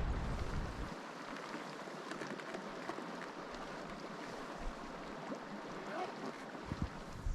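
Shallow river water flowing with a steady rushing hiss, with wind buffeting the microphone for the first second and again near the end.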